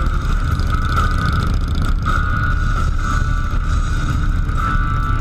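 A vehicle running with a steady low rumble, and a high whine that swells and fades several times.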